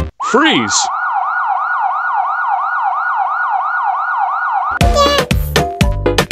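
Dance music cuts off, a voice shouts "Freeze!", and a siren sound effect sounds in fast repeating rising sweeps, about four a second, for about four seconds. The dance music starts again near the end.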